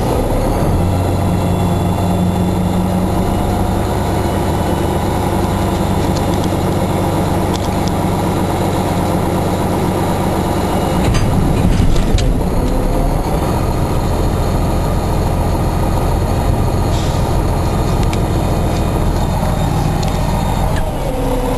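Roll-off truck's engine running steadily as the truck drives, a loud low drone. About halfway through the engine note breaks and changes, with a short rise in loudness, then settles into a steady drone again.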